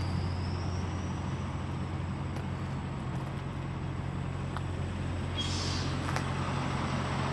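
Idling diesel of a tractor-trailer rig: a steady low drone. A short hiss comes about five and a half seconds in.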